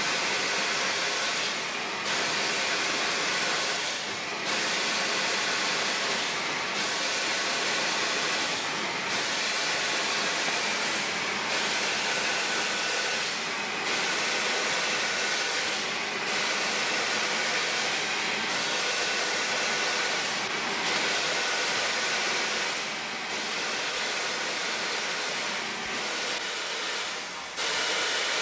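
Union Pacific 844, a 4-8-4 Northern steam locomotive, venting steam with a steady loud hiss that dips briefly about every two and a half seconds.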